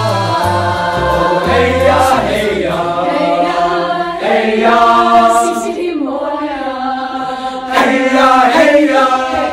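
Choir singing, many voices together.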